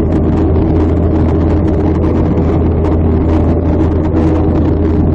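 Steady cabin noise of a jet airliner in flight: a constant low engine hum under rushing airflow, with a few faint steady tones on top.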